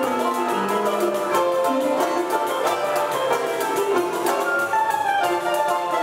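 A choro ensemble playing live: a ten-string bandolim with flutes and acoustic guitars, many quick plucked notes over held flute tones.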